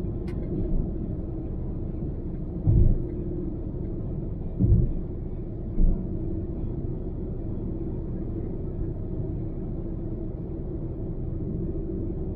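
A car driving on a highway: a steady low rumble of road and engine noise with a constant drone. Three brief low thumps come about three, five and six seconds in.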